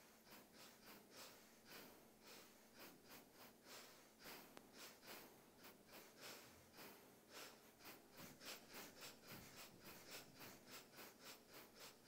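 Faint, quick pulses of breathy air noise, about four or five a second, in an even rhythm.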